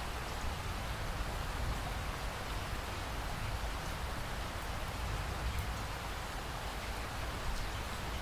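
Steady rain falling, an even hiss with a low rumble beneath and scattered faint drop ticks.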